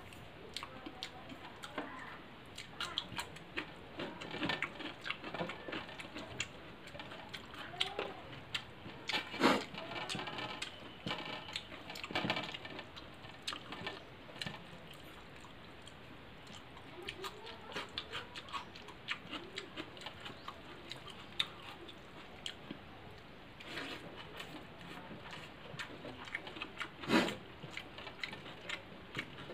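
Close-up eating sounds: wet chewing and lip smacks, with fingers mixing and scooping rice and curry on a steel plate. Many small irregular clicks, with a few louder smacks near the middle and near the end.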